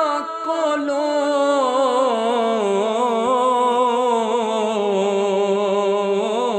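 Male singer holding one long, ornamented note of Punjabi Sufi kalam. The pitch slides down over the first two seconds, then stays there, wavering quickly.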